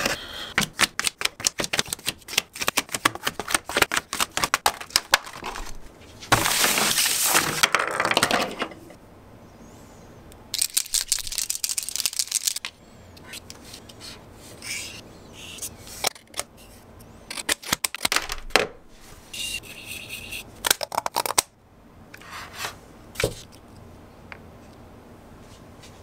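Paper and card being handled and torn: a fast run of crackles and clicks for the first several seconds, then separate bursts of tearing and rubbing, with short scratchy marker strokes between them.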